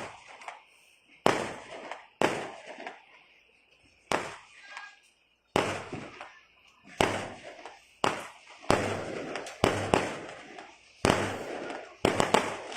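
Fireworks bursting one after another, roughly one sharp bang a second, each trailing off. Near the end the bangs come thick and fast into a continuous crackle.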